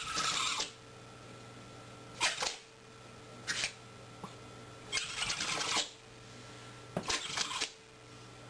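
A run of five short, breathy animal sneezes, one every second or so, the longer ones at the start and in the second half.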